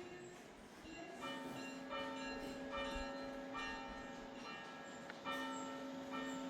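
Church bells ringing, a bell struck about every 0.8 s with each note ringing on under the next.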